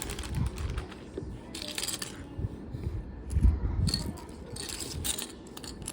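Loose plastic Lego pieces clattering and rattling in short bursts as they are handled, with dull thumps, the loudest about halfway through.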